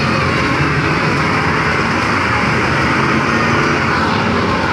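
Steady, loud rushing noise with a low rumble from a kiddie motorcycle carnival ride spinning, recorded from on board the moving ride.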